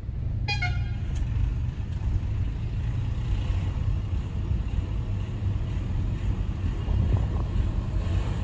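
Steady low road and engine rumble of a car heard from inside its cabin while driving. About half a second in there is a brief high-pitched tone, and a faint click follows a moment later.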